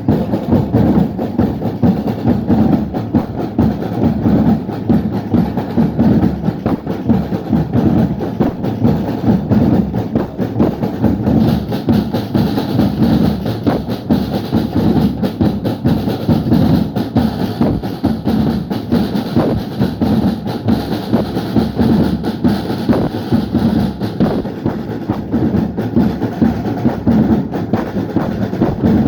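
A drum band playing together, many drums struck in a dense, fast, unbroken rhythm.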